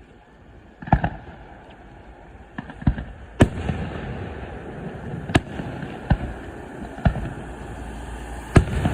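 Fireworks display: about seven sharp bangs of shells bursting, irregularly spaced a second or two apart, over a steady background rush that grows louder after about three seconds.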